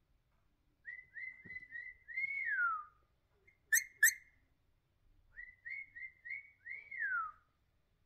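Indian ringneck parakeet whistling the same phrase twice: four or five quick short notes on one pitch, then a longer note that swells and slides down. Between the two phrases come two sharp clicks about a third of a second apart.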